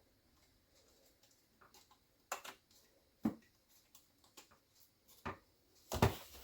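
A few light, irregular clicks and knocks of freezer parts being handled, spaced about a second apart, with the loudest knock near the end.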